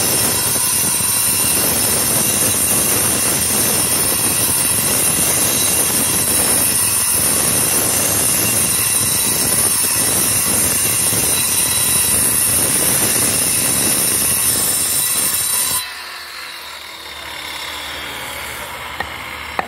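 Large angle grinder with a cutting disc slicing through a stone kerb, a loud steady grinding whine with a hissing edge. About sixteen seconds in it is switched off and spins down with a falling hum, and a few sharp clicks follow near the end.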